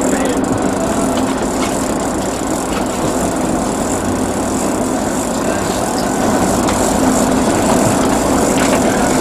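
Fishing boat's engine running with a steady hum under loud wind and water noise.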